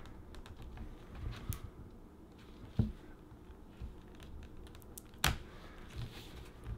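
Small clicks and scrapes of fingernails working a laptop battery cable connector loose from its motherboard socket, with a sharp click about three seconds in and a louder one about five seconds in as the connector comes free.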